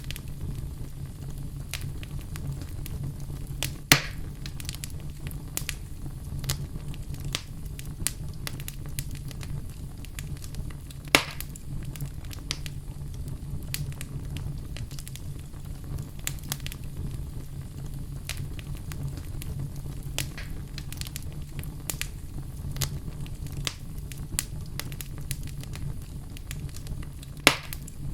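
Wood fire burning in a fireplace: a steady low rumble of flames with frequent scattered crackles and three louder pops, at about four, eleven and twenty-seven seconds in.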